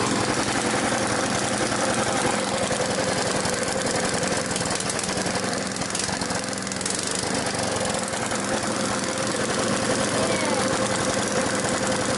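BSA 220cc single-cylinder governed engine running steadily, just after being started, with a loud rapid chugging beat.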